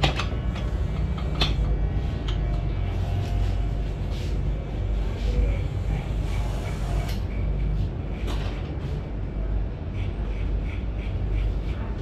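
Corded electric hair clippers buzzing steadily as they cut hair short, with a few sharp clicks.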